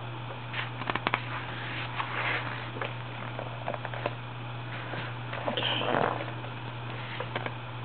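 Photobook pages being turned and pressed flat by hand: soft paper rustling and rubbing, with a few small clicks about a second in, over a steady low hum.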